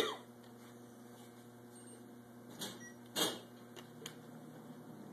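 Electric potter's wheel motor running with a steady hum as it spins a disc of clay. Two short noisy bursts break in, the louder about three seconds in, followed by a couple of faint clicks.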